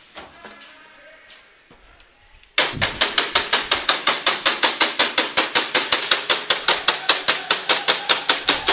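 Airsoft gun firing full-auto in a steady, fast string of shots, about seven a second, starting about two and a half seconds in. Before that there is only faint rustling and clicking.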